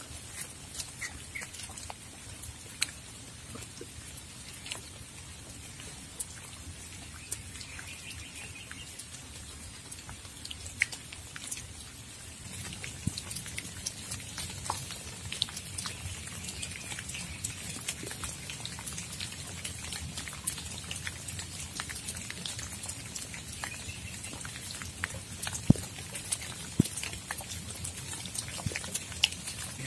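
Rain falling, with many scattered drops landing as sharp ticks over a steady hiss, and a few louder drops near the end.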